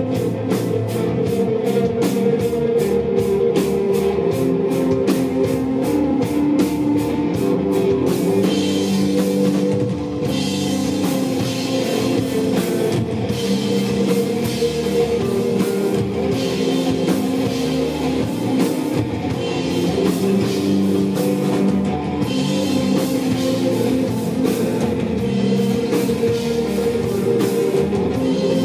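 Desert rock band playing live: electric guitar and bass holding sustained chords over a drum kit. A fast, even cymbal tick keeps time for the first eight seconds or so, then gives way to heavier cymbal crashes.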